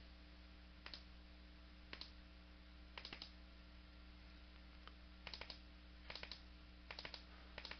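Faint computer mouse clicks, mostly in quick pairs and triples like double-clicks, over a low steady hum.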